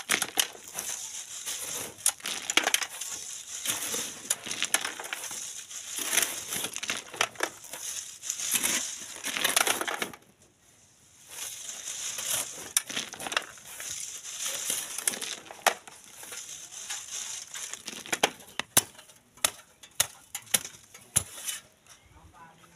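Steel shovels scraping and scooping gravelly sand in repeated strokes, with stones clinking, as the sand is sieved by hand. There is a short pause about ten seconds in and sharper clicks near the end.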